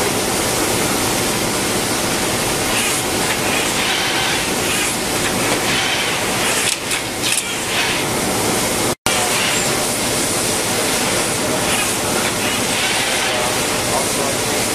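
Steady, loud hissing run of automated tray-filling and seeding machinery, with a brief cut about nine seconds in.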